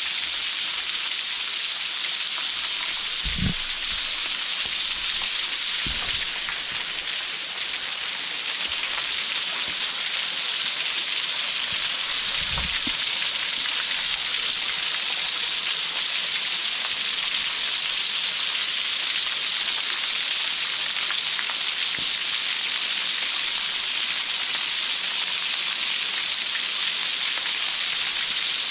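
Small waterfall splashing steadily onto rock, an even hiss of falling water, with a few soft low thumps in the first half.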